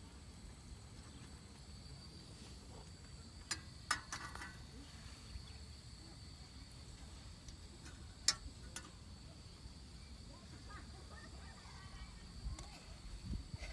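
A steady high-pitched trill of crickets or other insects over a low rumble, broken by a few sharp clicks about a third of the way in and again past halfway, and a thump near the end.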